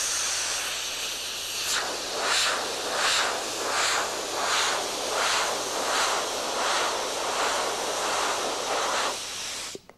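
Compressed-air jet hissing loudly from a blower tube as it holds a golf ball aloft; the hiss swells and fades about twice a second from about two seconds in, then cuts off suddenly near the end.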